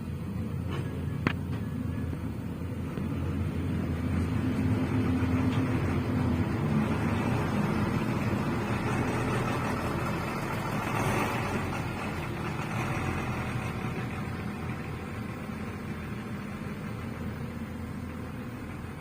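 Heavy diesel engine of construction machinery running steadily, working harder and louder for several seconds in the middle before easing back, with one sharp knock about a second in.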